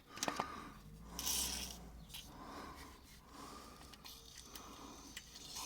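WD-40 aerosol can spraying penetrating oil in short hissing bursts onto seized, dirt-caked bolts, with the loudest burst about a second in and a fainter one later, plus a few small clicks.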